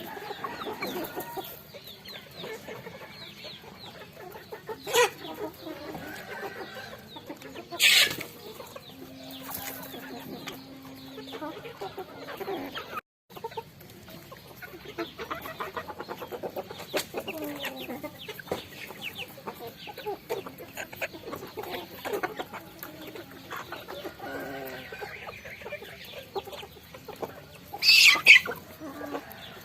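A flock of chickens clucking while they peck at rice, with a dense patter of small pecking taps. Three louder sharp sounds stand out, about 5 s, 8 s and 28 s in.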